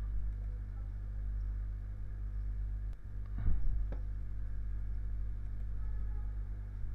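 Steady low electrical hum of the recording setup, with a few computer mouse clicks. A brief wordless voice sound about three and a half seconds in is the loudest moment.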